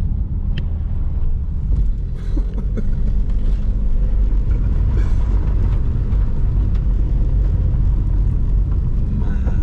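Car driving slowly over a rough, broken mountain road: a steady low rumble of engine and tyres, with a few small knocks in the first few seconds.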